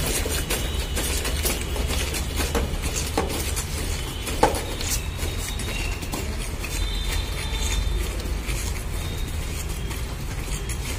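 Boots of a squad of cadets marching on a paved road, scattered sharp steps over a steady low rumble.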